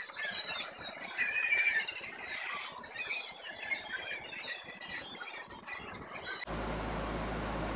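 A large flock of gulls calling, many squawks overlapping at once. About six and a half seconds in, this cuts off abruptly to a steady hiss with a low hum.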